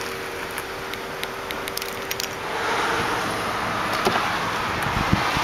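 Car keys jingling on a key ring, with small clicks. From about two and a half seconds in, wind rushes on the microphone; near the end a few clicks and a low thump as the car's door handle is pulled and the door opened.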